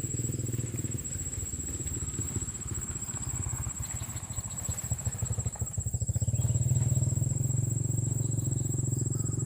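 Motorcycle engine running on a road close by, its low hum growing louder about six seconds in as it approaches. A steady high cricket trill runs over it.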